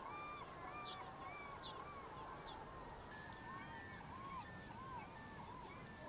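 A flock of birds calling faintly: many overlapping short, arched, honk-like calls, with a few quick high chirps mixed in.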